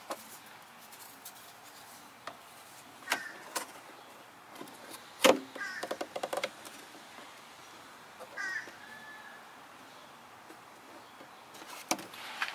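Metal license plate in a plastic frame knocking and clicking against a car's trunk lid as it is fitted by hand, with one sharp knock about five seconds in and a short rattle just after. A few short bird calls sound in the background.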